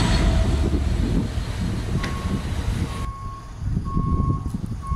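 Freight train of covered hopper wagons rumbling past. About three seconds in, the rumble cuts off suddenly, leaving a lower rumble and a single-pitched reversing alarm that beeps about once a second; the alarm starts a second before the cut.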